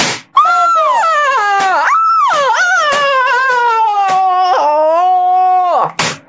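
A long, loud, high-pitched wail from a screaming teenage boy. Its pitch wavers and slides gradually down over about five seconds, with a short harsh burst of noise at the start and another just before the end.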